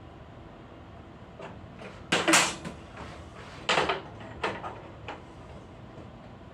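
Internal parts of a Lavazza Espresso Point EP 2100 espresso machine clattering and knocking as they are handled during disassembly: a loud clatter about two seconds in, then three shorter knocks over the next few seconds.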